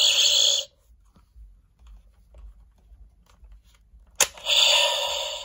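Power Rangers Lightning Collection Power Morpher toy playing its electronic sound effects: a loud crackling electric burst that cuts off under a second in, a few small handling clicks, then a sharp click about four seconds in and another crackling burst that fades near the end.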